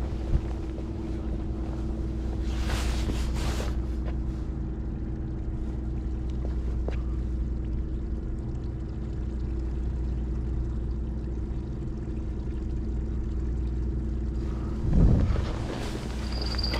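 A steady low engine drone with wind on the microphone. A brief rustle comes about three seconds in, and a short low bump about fifteen seconds in.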